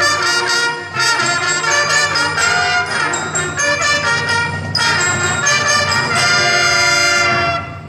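A row of trumpets playing a salute fanfare in unison. It ends on a long held note near the end.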